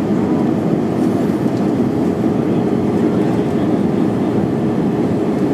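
Steady cabin noise inside an Airbus A320 on its descent: engine and airflow sound heard through the fuselage at a window seat, an even low rumble that does not change.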